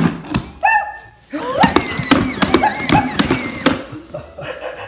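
Present Pets Dalmatian toy puppy yipping and barking from inside its cardboard box as the box is poked open, with a few sharp taps of the stick on the box at the start.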